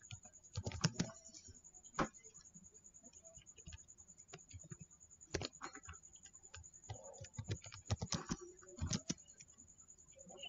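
Computer keyboard typing: single keystrokes and short runs of taps with pauses between them.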